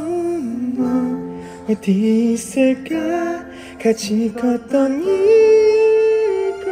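Background music: a slow song with a singing voice, the melody moving in steps and holding one long note near the end.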